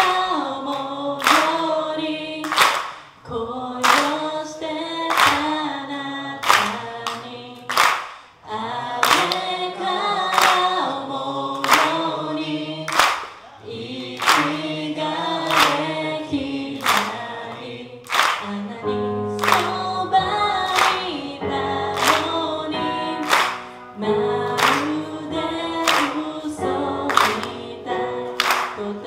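A woman singing a pop song live into a microphone, with handclaps on the beat. From about two-thirds of the way in, sustained electric piano chords come in under the voice.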